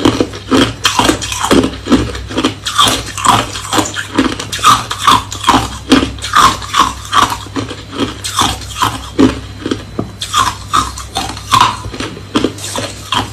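Hard, clear crushed ice being crunched between the teeth close to the microphone: a rapid, continuous run of crisp crunches, about three a second.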